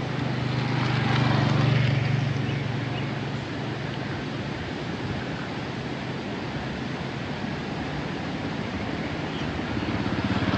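Steady rain hiss with a motor vehicle engine running underneath. The engine grows louder about a second in, fades, and swells again near the end.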